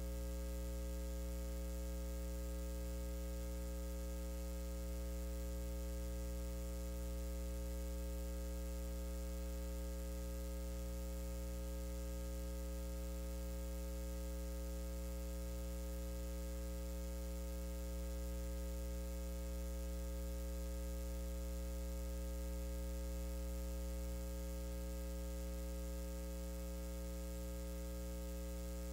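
Steady electrical mains hum: a low, unchanging buzz with a row of higher overtones over faint hiss.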